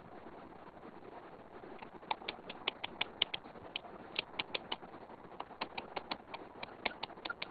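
Stylus tapping and clicking on a tablet's glass screen during handwriting: a quick, irregular run of light clicks starting about two seconds in, over a steady faint hiss.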